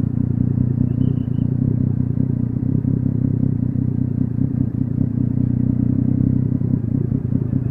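Triumph Street Triple 675's inline three-cylinder engine running steadily at low revs with no exhaust fitted, a deep, even rumble.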